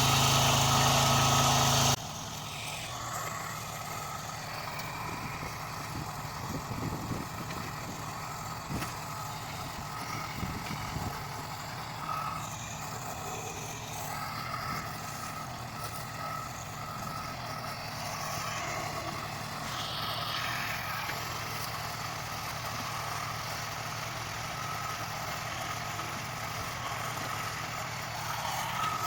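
Tractor engine running steadily, loud and close for the first two seconds, then cutting abruptly to a quieter, more distant steady run with a faint whine.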